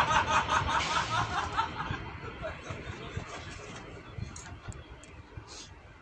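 Pulsing engine sound of a diesel railcar, about five beats a second, fading away over the first two seconds as it moves off. Then only faint background with a few light ticks.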